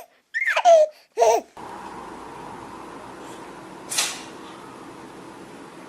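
A person laughing in high, falling tones for about a second, then a steady hiss with one short, sharp cat sneeze about four seconds in.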